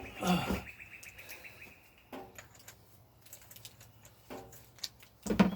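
Wild birds singing: a fast high trill for the first two seconds or so, then a falling whistled note near the end. A few light knocks and short human voice sounds come at the start and near the end.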